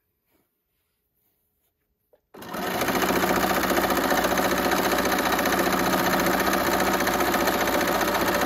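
Bernina sewing machine starting up about two seconds in and running steadily at speed, zigzag-stitching lace onto fabric. Before it starts there are only a few faint clicks.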